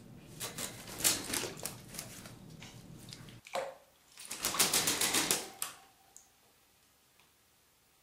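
African grey parrot beating her wings in shallow water in a sink basin: a flurry of rapid splashing slaps about a second in, and another louder flurry about halfway through.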